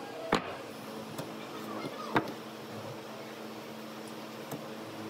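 Two sharp wooden knocks about two seconds apart, as squared pine blocks are set down on a wooden workbench, over a steady background hum.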